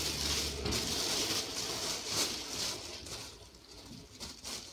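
Rustling and rummaging through a bag, loudest for the first couple of seconds and fading away after about three seconds.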